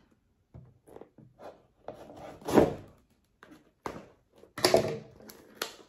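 Scissors cutting and scraping along the packing tape of a cardboard shipping box, heard as a series of separate short scrapes. The loudest comes about two and a half seconds in.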